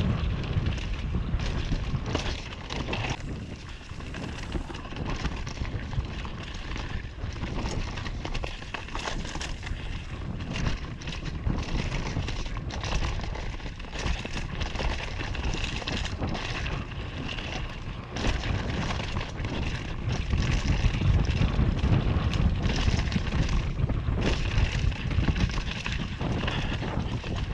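Wind rumbling on the microphone at riding speed over the clatter of an NS Fuzz downhill mountain bike on a rough dirt trail: tyres on dirt and roots, with the chain and frame knocking and rattling over bumps. It grows louder in the last third.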